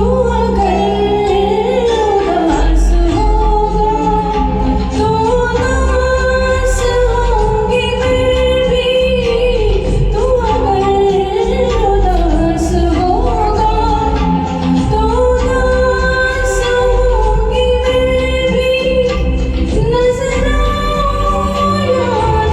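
A woman singing a slow Hindi film song with instrumental accompaniment of bass and light percussion.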